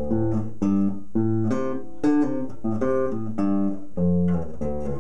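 Four-string electric bass guitar playing a run of single plucked notes, about two or three a second, picked with the thumb combined with the fingers.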